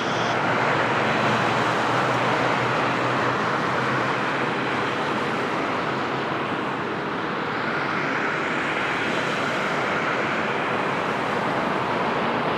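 Jet airliner engines and airflow as the plane passes low on landing approach: a steady, loud rushing noise that dips slightly about halfway through and swells again.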